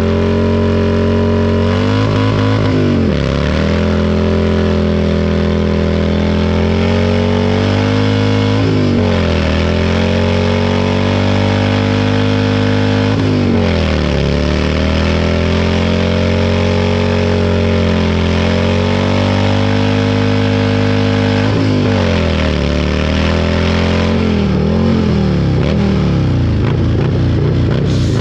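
Bagger motorcycle engine held at high revs in a stationary rear-tire burnout, spinning a worn-out rear tire. The engine pitch drops and climbs back up several times, as on upshifts toward sixth gear.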